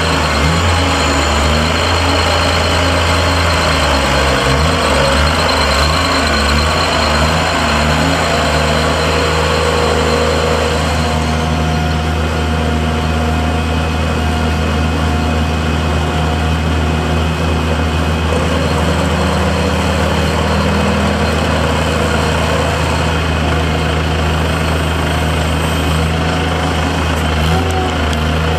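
John Deere 6200 tractor's four-cylinder diesel engine running steadily as the tractor drives at low speed, its note shifting a little about ten seconds in.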